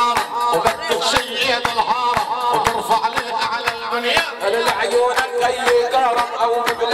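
Instrumental Arabic wedding music: an electronic keyboard (org) plays an ornamented melody over a fast, steady drum beat.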